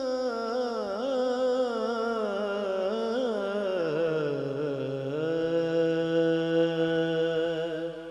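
A male voice sings a long, ornamented, wavering phrase of a Punjabi devotional song (naat) into a microphone. About halfway through, a steady low held tone sounds underneath the voice.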